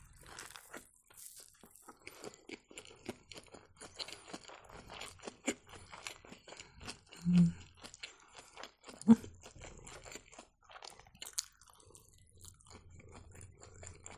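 Close-up chewing and crunching of a rolled rice-porridge pancake filled with trout, pear and lettuce: a quick, uneven run of small crunches and mouth clicks, with two louder ones about seven and nine seconds in.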